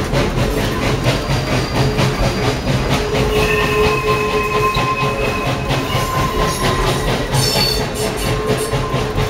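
A steam train rolling along the track, heard from an open car behind the coal-fired locomotive: steady clatter from the wheels with several thin, steady squealing tones, and a brief sharper high squeal about seven and a half seconds in.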